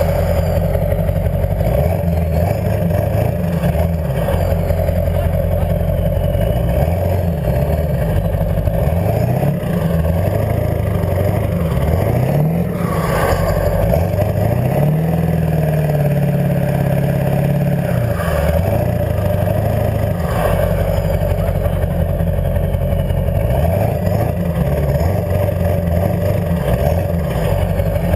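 Truck's 7.3-litre diesel V8 running through exhaust stacks, its pitch rising and falling again and again as it accelerates and lets off, held high for a few seconds about halfway through.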